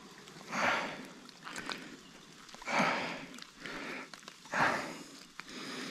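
A person breathing audibly through the nose in short sniffs and puffs, five or six of them, about one a second.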